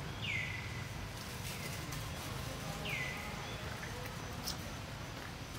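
A bird calling in forest: a short high whistle that falls in pitch, twice, about three seconds apart, over a steady low rumble of background noise.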